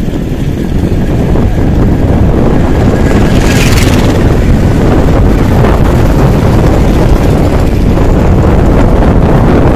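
Heavy wind buffeting on the microphone of a camera on a moving bicycle, a loud steady rumble, with a brief brighter hiss about three and a half seconds in.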